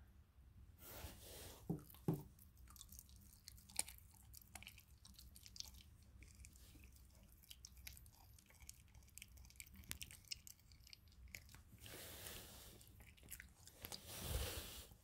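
German shepherd puppy chewing raw chicken on the bone: irregular crunches and sharp cracks of bone, with louder bouts of crunching a second or two in and again near the end.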